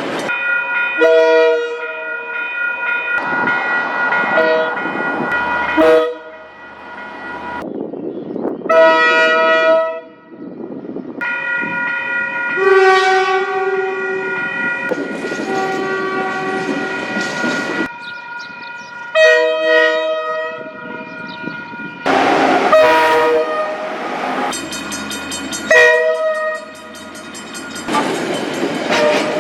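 Locomotive horns sounding one after another in short spliced clips, each horn a chord of several steady notes, with abrupt cuts between clips. The rumble of passing trains runs under and between the blasts.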